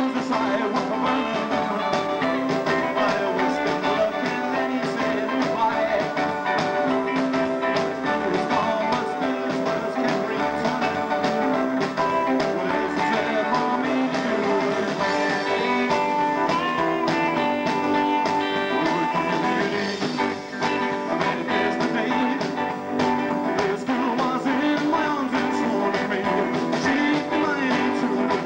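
Live rock and roll band playing a rockabilly number with electric guitar, upright double bass and drums, steady and loud throughout.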